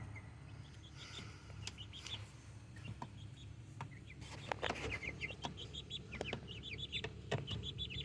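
Young, half-grown chickens calling in quick, short, high peeps and clucks, sparse at first and thicker from about halfway through, with a few faint knocks among them.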